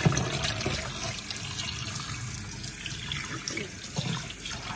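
Kitchen tap running into a sink, water splashing over raw chicken wings as they are rinsed, with a sharp knock at the start.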